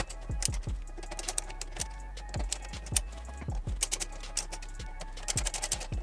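Irregular clicks and taps of a screwdriver tightening motherboard screws into the case standoffs, with background music.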